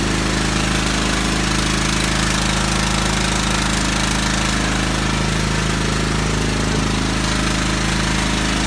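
A motor running steadily with a constant low drone and fine rapid pulsing, unchanging in level.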